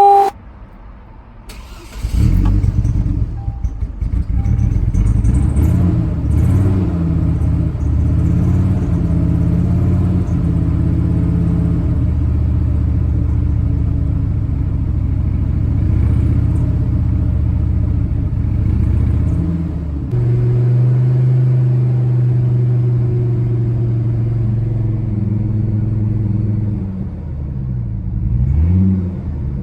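Chevy Colorado pickup's engine starting about two seconds in, then running rough and uneven, misfiring and hesitating. About twenty seconds in it settles into a steadier held note, with a brief dip and rise near the end. The rough running is the fault that appeared after a close lightning storm, which the owner suspects was a strike.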